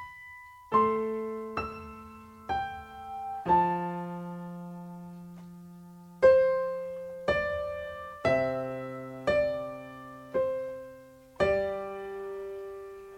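Electronic keyboard with a piano voice playing a slow phrase of single notes and chords. Each is struck and left to ring and fade. This is the song's introduction phrase played very slowly as a teaching demonstration.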